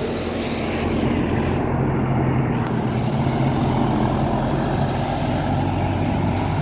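Farm tractor engine running with a steady low hum as the tractor drives close past.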